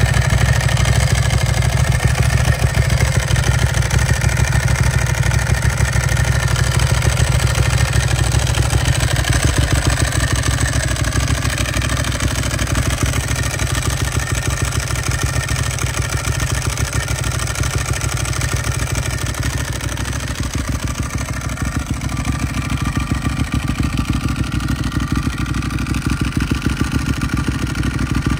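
Ducati 1198S's 1198 cc Testastretta Evoluzione L-twin idling steadily through Termignoni Titan slip-on silencers with the dB killers removed, a loud, deep, pulsing open-exhaust idle.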